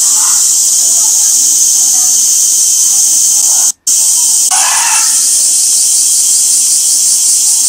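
Summer cicadas buzzing in a dense, loud, steady chorus, high-pitched with a fine pulsing texture. It drops out for an instant about halfway through.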